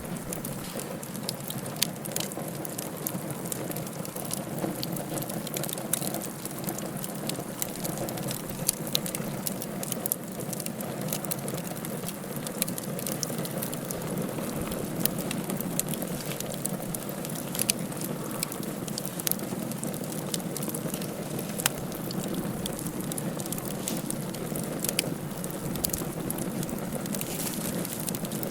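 Wood fire burning in a fireplace, with many irregular sharp crackles and pops over a steady hiss.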